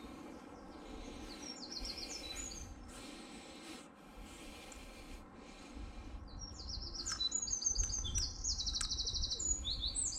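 Small songbirds singing: quick high chirps and trills, one short spell about a second and a half in, then a busier, louder spell from about six and a half seconds on. A low rumble runs beneath the second spell.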